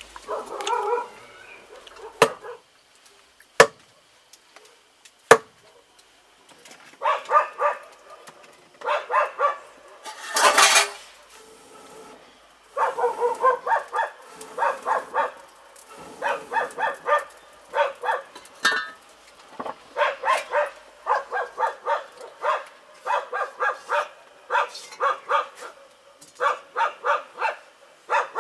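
A dog barking repeatedly in runs of quick barks, several a second. A few sharp knocks come in the first few seconds.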